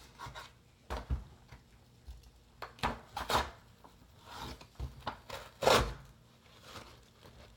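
Swiss Army knife's large blade cutting through two pieces of paper held together: a few short scraping, slicing strokes, the loudest nearly six seconds in.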